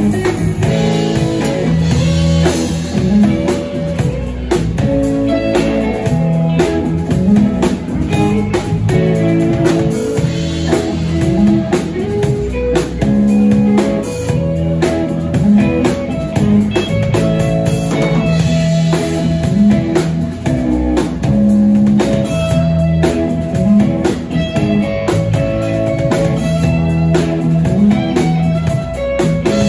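Live instrumental band jam: electric guitars and a bass guitar over a drum kit, played steadily through with no singing.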